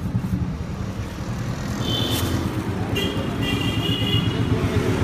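Street traffic noise: a steady low engine rumble from passing vehicles, with short high-pitched horn toots about two seconds in and again around three to four seconds in.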